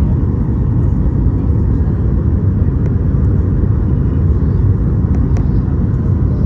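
Airliner landing: a steady, loud low rumble with a few faint ticks.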